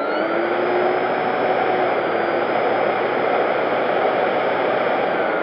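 FMS P-40B Tomahawk RC plane's electric motor and propeller whining in flight, rising in pitch as the throttle comes up at the start, holding steady, then easing slightly near the end. A steady rush of wind over the onboard microphone sits under the whine.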